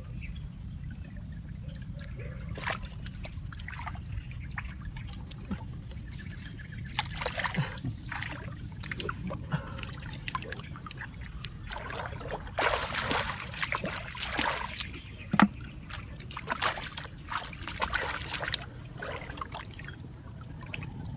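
Water trickling and sloshing in several bursts over a steady low rumble, with one sharp knock about fifteen seconds in.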